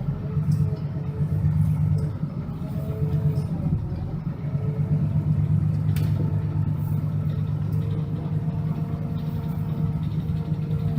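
School bus engine running as the bus drives off. It makes a steady low drone, with a faint whine that rises and falls in pitch.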